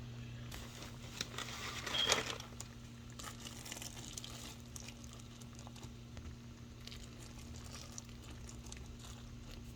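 Faint intermittent crinkling and crackling from kitchen handling at the stove, with a louder rustle about two seconds in, over a steady low electrical hum.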